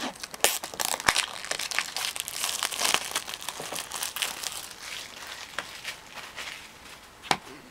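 Clear plastic shrink-wrap being peeled and crumpled off a Blu-ray case by hand: dense crinkling that thins out after a few seconds, with a sharp click near the end.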